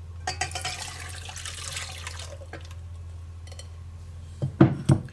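Liquid from grated potatoes poured off out of a glass bowl, a splashing pour of about two seconds that leaves the settled potato starch behind. Near the end, a few sharp knocks.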